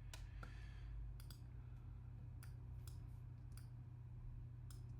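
Computer mouse clicks at uneven spacing, about two a second, over a steady low hum.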